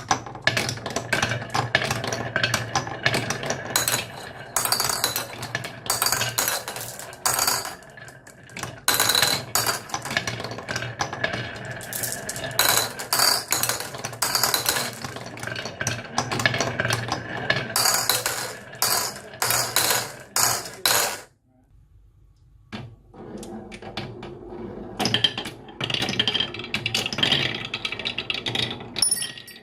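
Marbles rolling and clattering down a marble run: a steady low rumble of rolling with dense clicks as they hit the track and each other. It stops for about a second roughly two-thirds of the way through, then resumes with lighter, higher clicking.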